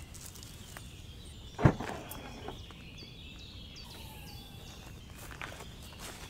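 Footsteps on leaf-strewn ground and gear being handled at a car, with one loud knock about a second and a half in; small birds chirp repeatedly in the background.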